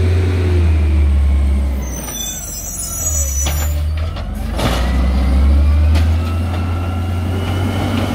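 Peterbilt 320 garbage truck with an Amrep automated side loader pulling up to the curb, its LNG engine running low and steady. The air brakes hiss about two seconds in. Then the hydraulic arm whines, rising and falling, with a few clunks as it grabs and lifts a recycling cart.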